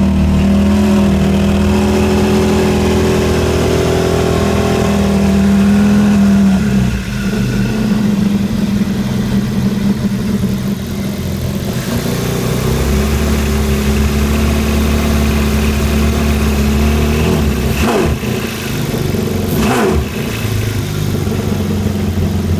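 Yamaha VXR personal watercraft engine running. Its note shifts about a third of the way in and again near the middle, and there are two short sharp bursts near the end. The owner suspects the engine sound may be a knock.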